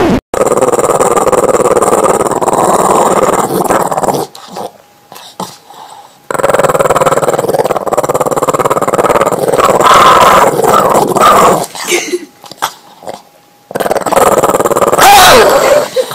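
Boston terrier growling in long, rough stretches of several seconds each, with short breaks between them.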